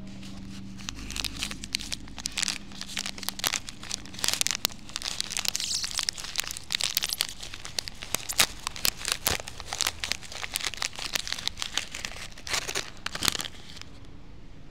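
Plastic snack packet of Tricks Original Baked Crisps crinkling and rustling as it is handled, opened and the crisps slid out. The crackling starts about a second in, comes loud by turns, and stops about a second before the end.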